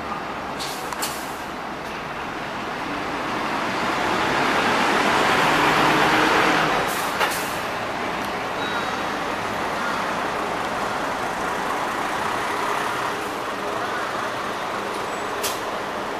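Diesel city buses pulling out and driving past close by. Engine and tyre noise swells to a peak about halfway through, then settles back to a steady run, with a few short clicks along the way.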